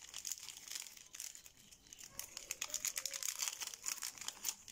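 Foil wrapper of a Yu-Gi-Oh booster pack crinkling and tearing as it is opened by hand. It is a dense run of sharp crackles that eases off briefly about halfway through and then picks up again.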